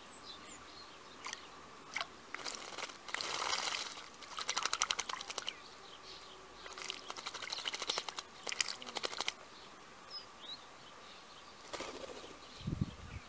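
Female Eurasian blackbird bathing in shallow water, beating its wings to splash: two spells of rapid splashing a couple of seconds each, with a few single flicks between them. A short low thump comes near the end.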